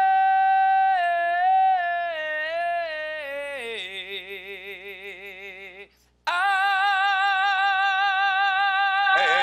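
A man singing solo in a high voice with no accompaniment. He holds a long note, then sings a phrase that steps down in pitch into a lower wavering note. After a brief break about six seconds in, he sings another loud, held note with heavy vibrato.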